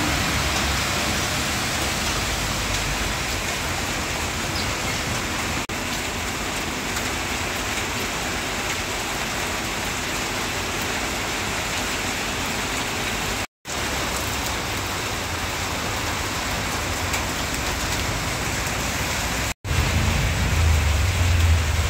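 Heavy rain falling steadily on a road and on the vehicles in it, a constant hiss that cuts out for a moment twice. A low rumble of passing traffic grows louder near the end.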